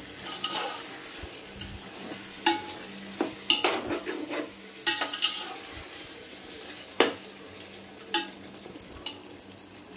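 Perforated metal ladle stirring chicken in thick masala gravy in a large metal pot, scraping and knocking against the pot several times, the sharpest knock about seven seconds in. Under it the gravy sizzles steadily as it cooks on high flame.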